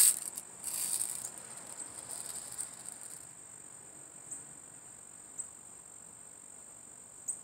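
Steady, high-pitched insect drone, with a few faint ticks in the second half.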